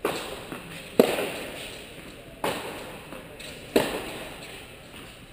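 Tennis ball being struck back and forth by racquets in a baseline rally, a sharp hit about every second and a half. Each hit echoes through the large indoor tennis hall.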